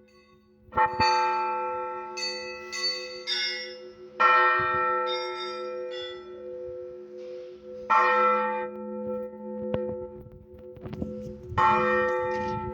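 Russian Orthodox church bells ringing: a large bell struck four times at about three-and-a-half to four-second intervals, with lighter strikes of higher-pitched bells between, and the big bell's hum carrying on under them.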